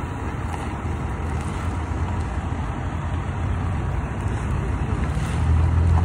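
Cars driving slowly past, a steady low engine and road rumble that grows louder about five seconds in as a car comes closer.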